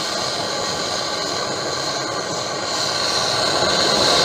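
Small handheld brazing torch flame hissing steadily while heating a copper refrigerant joint on a window air conditioner, getting a little louder about three seconds in.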